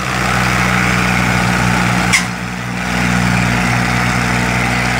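Massey Ferguson tractor's diesel engine running steadily under a heavy load as it pulls a trolley piled with sugarcane. A single sharp click comes about two seconds in, and the engine sound dips briefly after it before picking back up.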